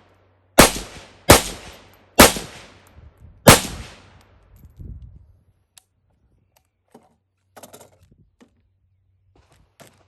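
Four rifle shots fired in semi-automatic, spaced about a second apart in the first three and a half seconds, each a sharp crack with a short fading tail. The rifle is firing steel-cased Wolf ammunition and cycling without malfunction. A few faint clicks follow.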